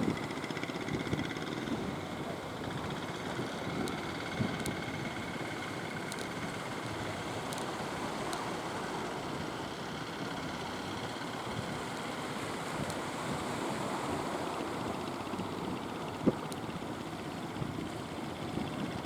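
Fishing boat engines running steadily amid surf and wind on the microphone, with one sharp knock near the end.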